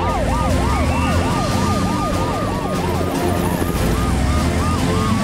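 Sirens of cartoon emergency vehicles on a rescue run, over a low engine rumble. One siren sweeps up and down about twice a second and fades after a few seconds, while a second siren keeps up a stepped, repeating call.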